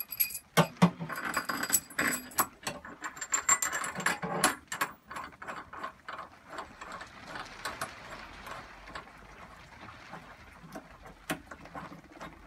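Steel drawbar, its threaded rod and lock nuts clinking and rattling against metal as it is handled and fed through the lathe's headstock spindle. A quick run of sharp metallic clicks and rings over the first five seconds, then fainter scraping with an odd click.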